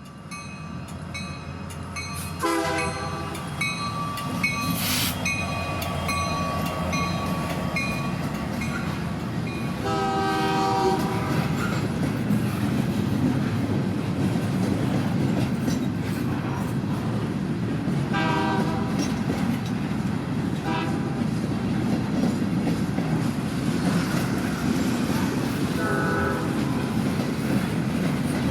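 Narrow-gauge steam train heard from an open-air car. A rumble builds and then runs on steadily, and for the first several seconds the locomotive's bell rings at an even pace. The steam whistle sounds several blasts: a short one early, a longer one about ten seconds in, and short ones later.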